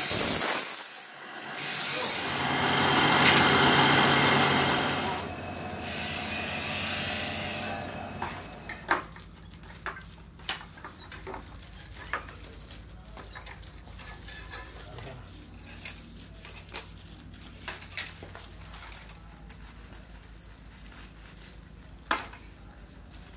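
A steel knife blade being ground on a bench grinding wheel: a loud hissing grind with two brief breaks near the start, fading out after several seconds. Then quieter handwork with a few sharp clicks and taps.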